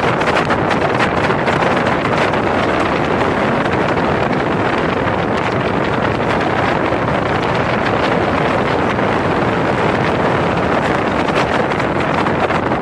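Speedboat under way at speed: a steady, loud rush of engine and water noise, with wind buffeting the microphone.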